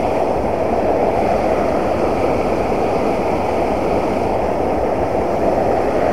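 Fast river water rushing and churning through white-water rapids, a loud, steady rushing noise with no let-up.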